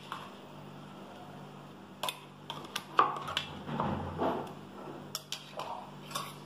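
Metal spoon clinking and scraping against a steel plate as green chilli paste is spooned onto raw chicken pieces: a handful of sharp clicks, the loudest about three seconds in, a brief soft wet squish around four seconds, and a few lighter taps near the end, over a faint steady hum.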